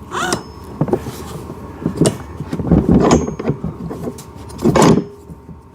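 Parts of a ride-on toy car's steering assembly knocking and scraping as they are handled and fitted into the frame: several separate knocks and short rubbing sounds, the loudest about three seconds in and again near the end.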